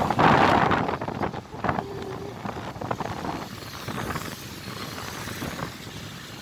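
Riding noise on a moving motorcycle: engine and road noise mixed with wind rushing over the phone's microphone. It is loudest in the first second and then settles to a steadier, lower level.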